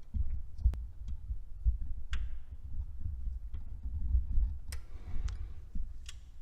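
Hands working parts on an engine's distributor: low thumping handling noise with about five sharp, brief clicks spread through it.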